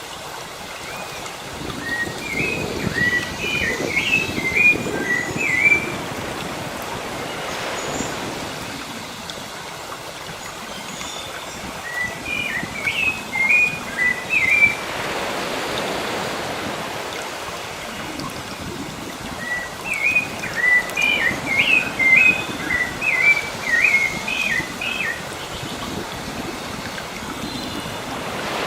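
Sea waves washing steadily, while a songbird sings three bursts of quick, rising chirps and whistles, the last the longest.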